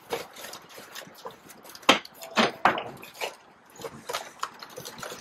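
Crumpled brown kraft packing paper rustling and crackling as it is pushed into a cardboard box, in irregular bursts with a sharp crackle about two seconds in.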